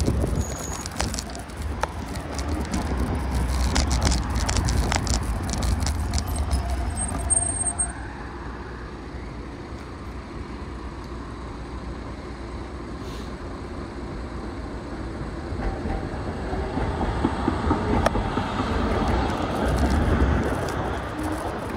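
Road vehicle noise: a steady low rumble of travel, with rattling and clicking over the first several seconds, then a quieter stretch before the rumble swells again near the end.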